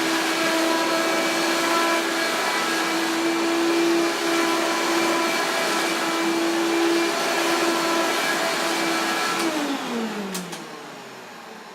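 Hoover Power Max vacuum cleaner running with a steady motor whine, then switched off about nine and a half seconds in, its motor winding down in falling pitch, with a couple of clicks.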